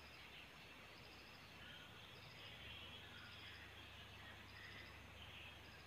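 Faint outdoor background: a short high chirp of a few quick pulses repeats about once a second over a low steady hum, with scattered fainter calls.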